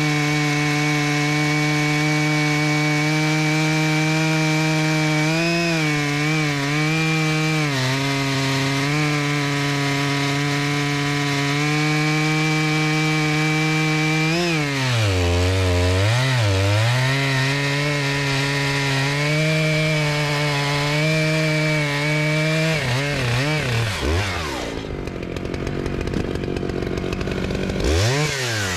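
Brand-new Stihl MS 881 Magnum, a 121.6 cc two-stroke chainsaw, cutting through a red oak log at full throttle with a .404 chain. The engine runs at a steady high note that dips and wavers as the chain loads in the wood, and drops sharply for a couple of seconds about halfway through. Near the end the engine winds down as the cut finishes, then revs briefly once more.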